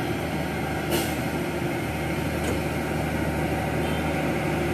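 Heavy diesel truck engine running steadily, with a short hiss about a second in.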